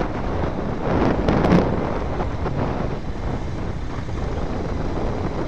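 Wind rushing over the microphone with the engine and tyre rumble of a vehicle driving over a cracked concrete runway, and a few knocks about a second and a half in.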